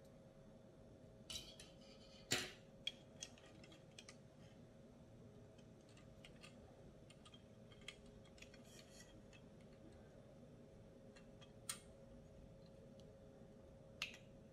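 Plastic LEGO buildable-figure pieces clicking and knocking as the figure and its blaster are handled. There are a few scattered sharp clicks, the loudest about two seconds in, over a faint steady hum.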